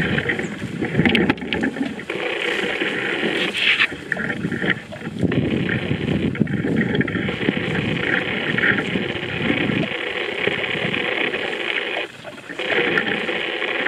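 Water buffalo grazing close by: grass being torn and chewed in a dense, continuous crackling rustle, with a steady hiss above it. The sound drops out briefly about twelve seconds in.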